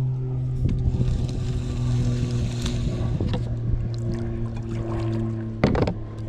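Steady low mechanical hum, like a small motor running, with scattered light clicks and one sharp knock near the end.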